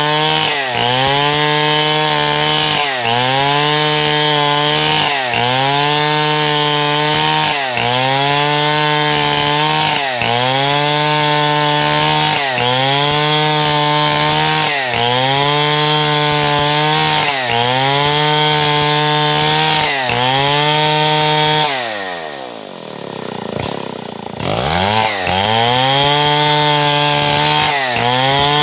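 Stihl MS070 two-stroke chainsaw cutting wood at full throttle, its pitch dipping and recovering in a regular rhythm about every two and a half seconds. About three-quarters of the way through the revs fall away to a low idle for two or three seconds, then climb back up to full speed.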